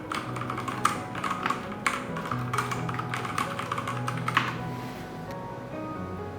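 Typing on a Ducky One 3 TKL mechanical keyboard with brown tactile switches: a quick, uneven run of key clacks that stops about five seconds in, over background music.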